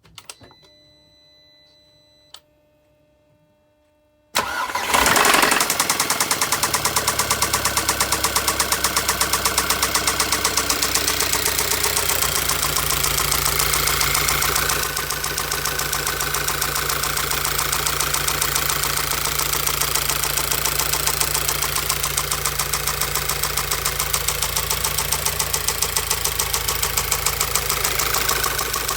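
A Volkswagen-group TSI petrol engine is started after a few quiet seconds, catches with a brief rise in revs, and settles into a steady idle. A fast, even knock runs through the idle, the knock the owner is recording.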